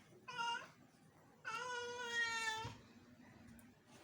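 Domestic cat meowing twice: a short meow, then a longer, drawn-out one.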